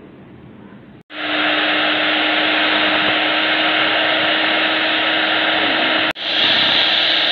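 Electric hand mixer running at a steady speed, its beaters whipping cream; it starts about a second in, breaks off for an instant near six seconds, and carries on.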